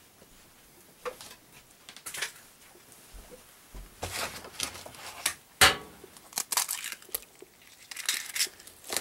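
An egg being cracked into a plastic mixing bowl: short crackles and clicks of eggshell breaking and being pulled apart, with one sharp crack about halfway through.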